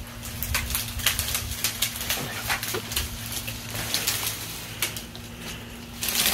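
Branches and twigs of a small, mostly bare tree cracking and snapping as it is pulled over by hand, with a run of sharp snaps and a brushy rustle as the limbs are dragged through the brush, loudest about four seconds in and again near the end.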